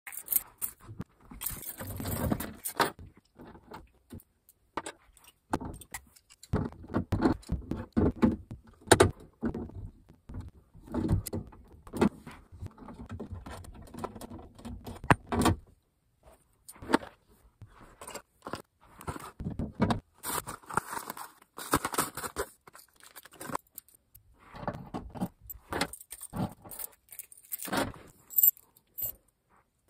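Keys jangling, with metal clicking and rattling in irregular bursts and short pauses, as a fire alarm panel's lock is worked.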